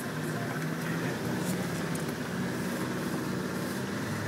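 Land Rover Defender's engine running steadily at low speed, heard from inside the cab while it drives along a rough track.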